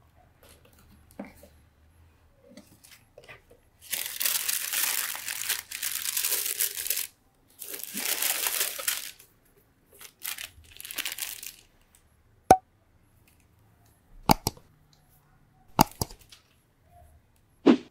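Tissue paper inside a sneaker box rustling and crinkling as it is folded back, in three long stretches, followed by a few short sharp clicks as the shoe is handled.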